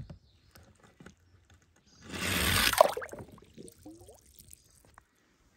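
A small toy car slides down a plastic slide and plunges into water with a splash about two to three seconds in, followed by a few short bubbly gurgles.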